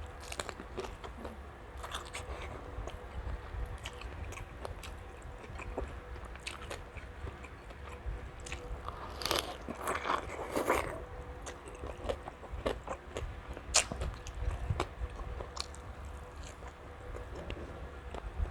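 A person biting and chewing crispy deep-fried pork belly (lechon kawali), with many short sharp crunches and a louder run of crunching about ten seconds in.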